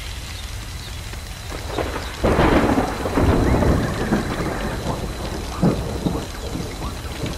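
Thunder over a steady hiss: a loud thunderclap about two seconds in rolls on for a couple of seconds and dies away, with a few smaller crackles after it.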